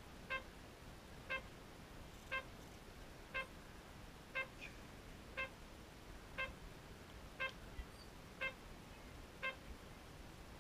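Electronic beeper of an RC race-control timing system sounding short, evenly spaced beeps once a second, about ten in a row.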